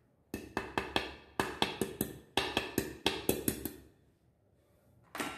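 Wire whisk clattering against a stainless steel bowl while stirring flour with oil: a quick run of about eighteen metallic clicks over three and a half seconds, then, near the end, one louder knock on the bowl that rings on.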